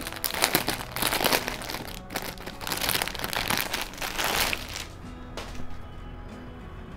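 Clear plastic packaging bag crinkling and rustling as a dress is pulled out of it, stopping about five seconds in; faint background music continues underneath.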